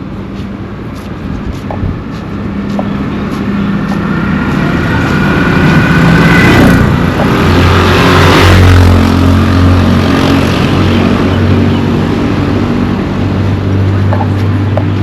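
A motor vehicle on the road comes closer and passes close by, getting louder over several seconds and loudest around the middle. Its low engine hum carries on after it goes by.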